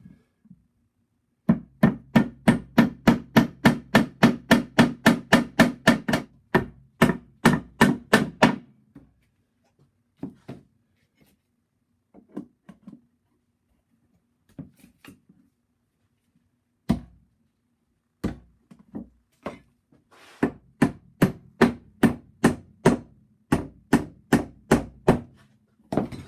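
Hammer driving small copper tacks into wood, fixing the door hinges: a fast run of tapping strikes, about four or five a second, then a few scattered taps, and a second quick run near the end.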